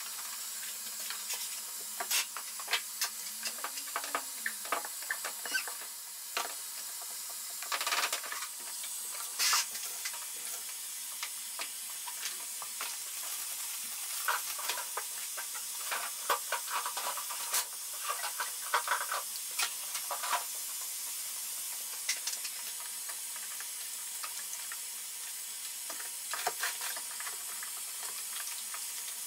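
Water and powdered adhesive being mixed in a plastic bucket standing in a steel sink: scattered knocks, taps and scrapes against the bucket and stirring, over a steady hiss.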